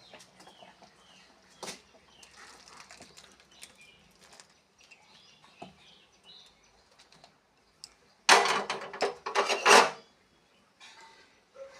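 Egg curry being scooped out of the cooking pan into a serving dish: light clinks and scrapes of a spoon against the pan, with a louder, longer scraping about eight seconds in.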